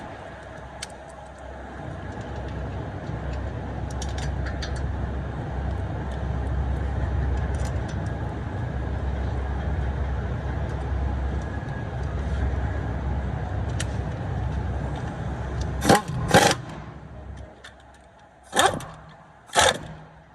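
Car running with a steady low rumble that builds gradually, then four loud sharp sounds in two pairs near the end as the rumble dies away.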